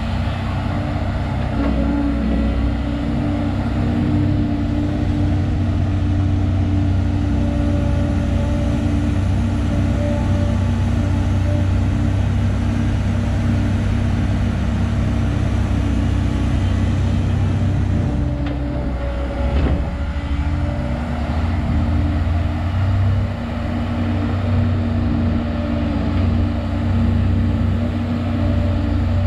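Diesel engine of a Volvo EC210 crawler excavator running steadily while its arm works, a constant low drone. Its note dips briefly and shifts about two-thirds of the way through, then settles again.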